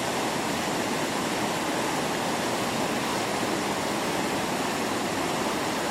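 Flood-swollen creek roaring at a crossing: a steady, unbroken rush of high, fast water.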